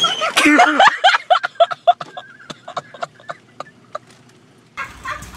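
A person's voice in a quick string of short, pitched vocal sounds, not words, loud at first and trailing off over about three seconds. A low steady background noise starts suddenly near the end.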